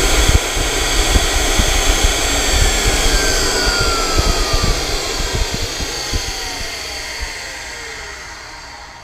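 Tool post grinder on a metal lathe running against a tungsten carbide cutter, then switched off: its whine falls steadily in pitch as it winds down and the noise fades away near the end. The grinding stone is too weak for the carbide and wears away instead of cutting it.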